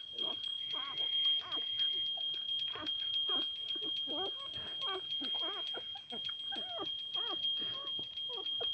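Newborn puppies squeaking and whining in short rising and falling calls, several a second, as they jostle at their mother's teats. A steady high-pitched electronic tone sounds behind them.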